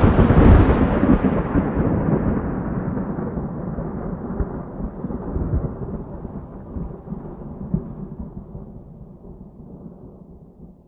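Long, deep thunder-like rumble fading away slowly and steadily: the tail of a single big boom, a dubbed-in sound effect rather than the sound of the drill.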